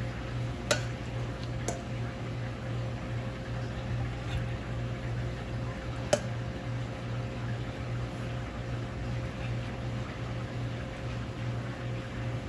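Cooked chicken adobo being served from the pan onto a plate: a few sharp clinks of a utensil against cookware, three of them, over a steady low kitchen hum.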